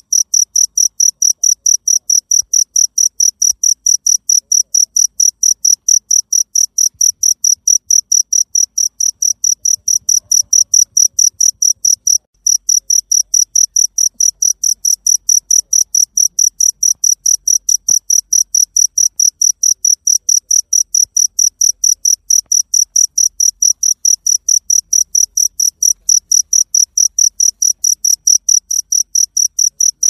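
Field cricket chirping: rapid, evenly spaced high-pitched chirps on one note, with a momentary break about twelve seconds in.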